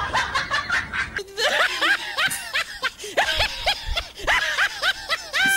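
High-pitched snickering laughter: a rapid string of short rising-and-falling squeals, several a second, starting about a second in.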